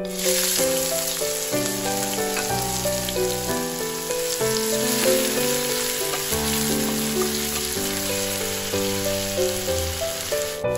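Chopped onions sizzling and frying in hot oil in a steel pan, the hiss starting as they are tipped in and stopping just before the end. Background music plays underneath.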